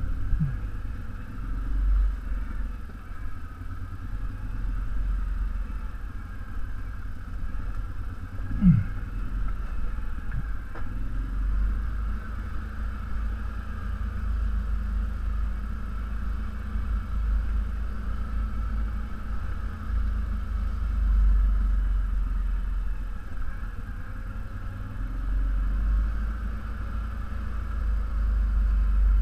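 ATV engine running at low speed on a rocky dirt trail, a steady rumble with a mid-pitched drone over it. A short falling thud about nine seconds in.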